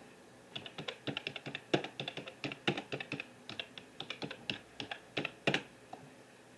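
A quick, irregular run of short, sharp clicks and taps, several a second, lasting about five seconds and stopping just before the end.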